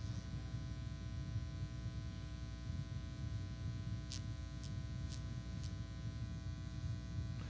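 Steady electrical mains hum and buzz in the sound system. Four faint ticks come about half a second apart midway through.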